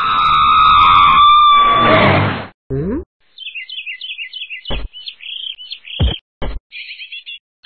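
Cartoon sound effects: a loud held whistling tone, falling slightly, with a hiss for about two and a half seconds, then a run of quick high bird-like chirps broken by a few short low thumps.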